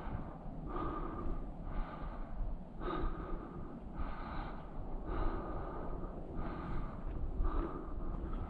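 A climber breathing hard from exertion, a quick breath about once a second, over a steady low rumble.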